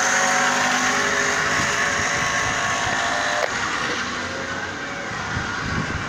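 A car passing on the road, its steady tyre and engine noise slowly fading as it moves away, with a brief click about three and a half seconds in.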